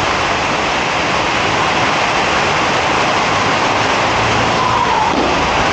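Steady, loud rushing noise with no clear pitch, like wind or traffic, with a faint low hum joining in near the end.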